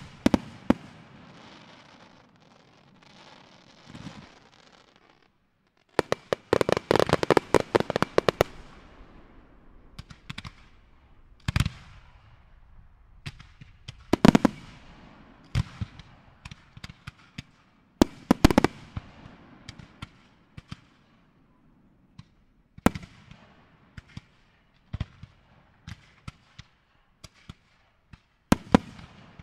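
Large professional fireworks display: aerial shells and comets bursting with sharp bangs. A rapid run of reports starts about six seconds in and lasts a couple of seconds, then single loud bangs follow every few seconds, each fading off after it.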